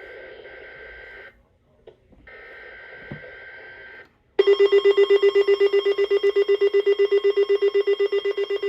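Weather-radio SAME alert header: two buzzy data bursts of a second or two each. They are followed, from about four seconds in, by a loud alarm tone that pulses rapidly, about eight beats a second, as an alert is triggered for an Environment Canada weekly test.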